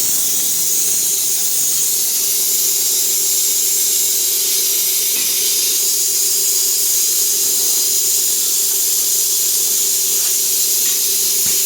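A steady hiss, like air under pressure, with a faint steady hum beneath it.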